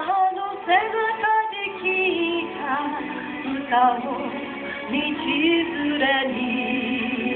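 A woman singing a Japanese pop ballad over instrumental accompaniment, her held notes wavering with vibrato.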